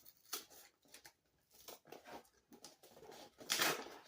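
Packaging rustling and crinkling as it is handled during an unboxing, in short scattered bursts, with a louder rustle about three and a half seconds in.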